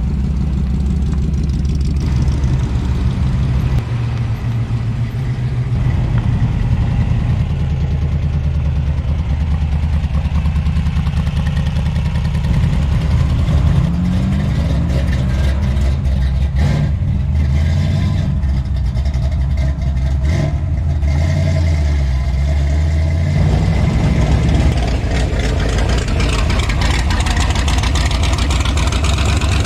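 Hot rod and muscle car engines idling loudly, with a rev that climbs in pitch about halfway through.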